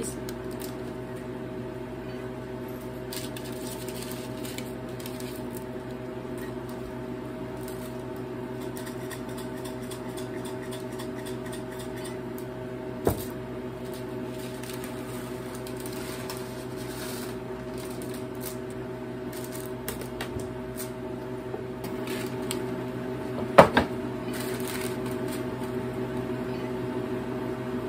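Steady hum of the Harvest Right freeze dryer's refrigeration unit running, with parchment paper crinkling and light handling clicks over it. A sharp knock comes about halfway through, and a louder clatter near the end.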